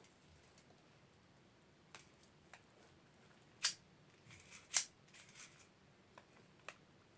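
BB gun being handled and loaded with a paper-wrapped, pointed BB: a few small clicks, then two sharper clicks a little past the middle with light rattling between them, and more small clicks near the end. The homemade round is jamming in the gun.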